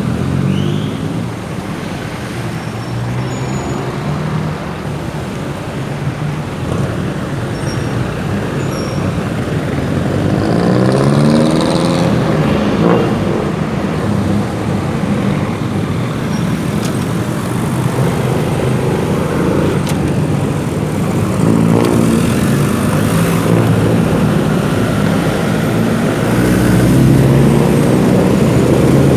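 Motorcycle engine running while riding in city traffic, its pitch rising and dropping several times as it accelerates and changes gear, over steady road and traffic noise.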